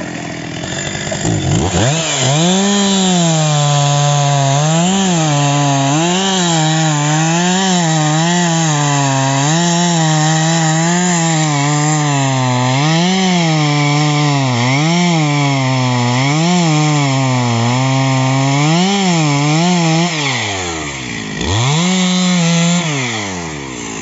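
Two-stroke chainsaw revs up about a second and a half in and saws into the base of a birch trunk, cutting the felling notch. Its engine pitch dips and recovers about once a second as the chain bites and is eased off. Near the end it drops back toward idle, revs briefly once more, and falls away again.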